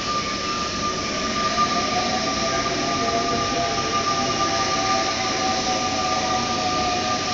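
Paris Métro line 4 MP89CC rubber-tyred train running through the station, a steady rolling noise with a high electric whine and lower tones that rise slightly about two seconds in.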